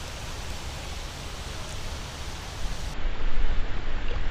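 Wind rumbling on the action camera's microphone, a steady noise that grows louder and duller about three seconds in.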